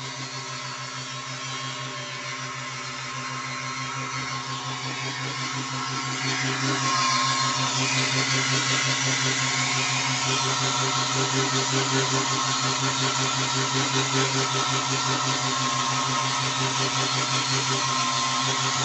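Small 12–24 V DC motor of a mini wood lathe running steadily, with a hand chisel scraping the spinning wooden workpiece. The cutting gets louder about six seconds in.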